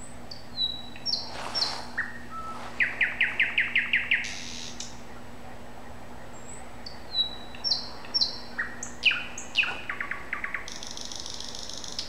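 A songbird sings two phrases of varied whistles and high notes, each with a quick run of repeated notes, over a faint steady low hum.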